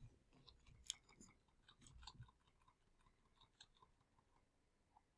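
Near silence, broken by a few faint, scattered small clicks and ticks; the clearest comes about a second in.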